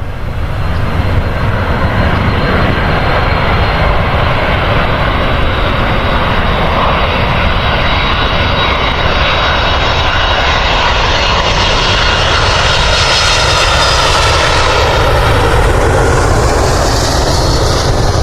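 Airliner jet engines running loud and steady as the aircraft passes close, a high hiss swelling and rising over the second half.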